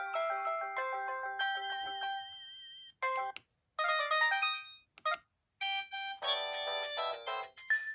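Samsung E1210M phone ringtones, electronic melodies. One tune fades down and stops about three seconds in, a few short snippets start and cut off with silence between them, and a fuller, louder tune begins about six seconds in.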